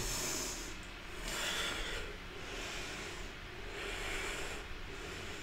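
A woman breathing audibly, several long breaths in and out, one after another, while moving through a yoga vinyasa.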